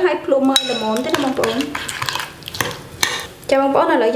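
A metal spoon stirring a liquid chilli-and-shallot dressing in a ceramic bowl, with repeated clinks and scrapes against the bowl. A wavering tone sounds alongside.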